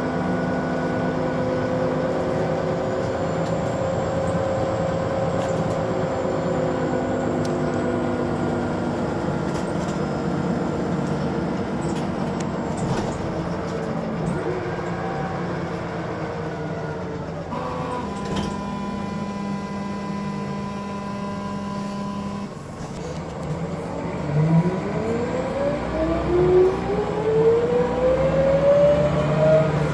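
Scania bus's diesel engine heard from inside the saloon: the engine note sinks slowly as the bus slows, holds steady for a few seconds, then rises as it pulls away and accelerates, dropping back near the end at a gear change.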